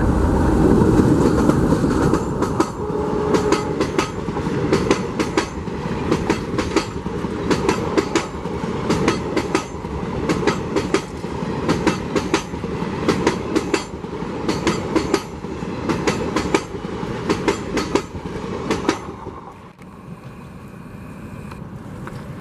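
ALCO WDM3D diesel locomotive passing close by at speed, its engine loud for the first couple of seconds. The passenger coaches follow, their wheels clattering in quick, regular groups of beats over the rail joints of a small rail bridge. The clatter stops about nineteen seconds in, and the train sounds fainter as it moves away.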